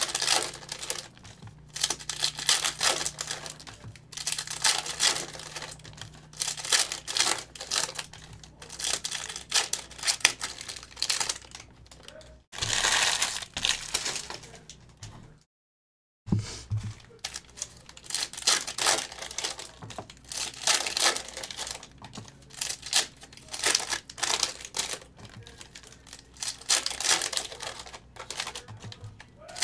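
Foil trading-card pack wrappers from a 2022 Optic football hobby box crinkling and tearing in repeated short bursts of rustling as the packs are ripped open and handled. The sound cuts out completely for under a second about halfway through.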